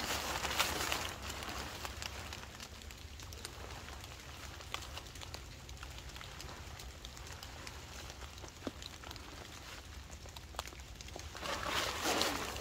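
Rustling of a camouflage rain poncho being pulled on and adjusted. It is loudest in the first second and again near the end, with softer rustles and a few light ticks in between.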